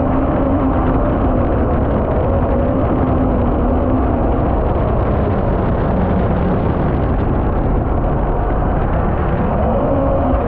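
Mini jet boat's 1.1-litre Yamaha MR-1 four-stroke engine running under way, its pitch rising and falling a little, over the steady rush of the jet and water under the hull.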